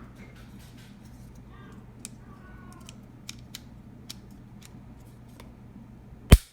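Light clicks and snips of a GoPro camera box and its packaging being handled, then one sharp, loud knock near the end.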